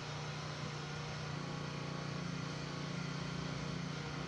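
A steady low engine drone holding one pitch.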